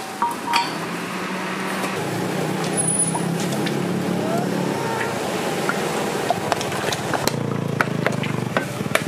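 A motor or engine running steadily with a low hum, under a noisy background with scattered clicks and knocks.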